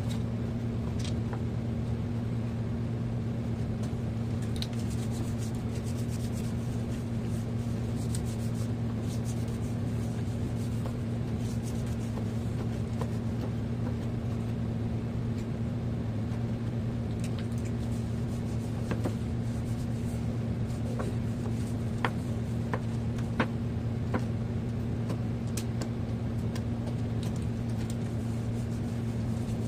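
Steady low electrical hum, with a few light clicks and taps about two-thirds of the way through.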